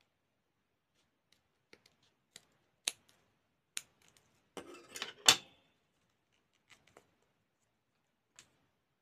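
Small scissors snipping: a few separate sharp clicks, then a quick cluster of snips about five seconds in, the loudest of them, as a fabric label is cut off doll clothing.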